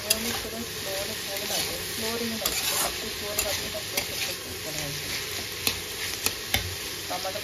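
Beans frying in a pan with spices, sizzling steadily while a spatula stirs them, its edge clicking against the pan about seven times at irregular intervals.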